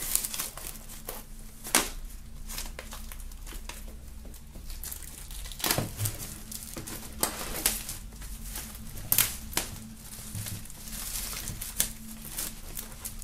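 Plastic shrink-wrap film being peeled and torn off a vinyl LP sleeve, crinkling and crackling irregularly, with a few louder crackles about two, six and nine seconds in.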